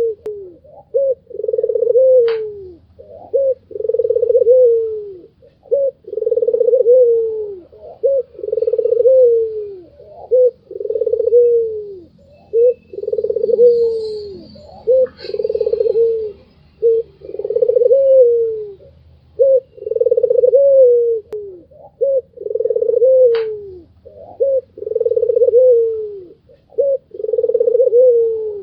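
White Barbary dove (puter putih) calling over and over: a long coo that drops in pitch at its end, then one or two short notes, the phrase repeating about every two seconds.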